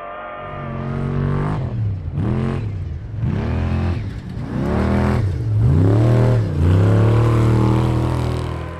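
Off-road race truck engine running at high revs, its pitch climbing and dropping several times as the throttle is opened and lifted. It is loudest in the second half and dies away at the end.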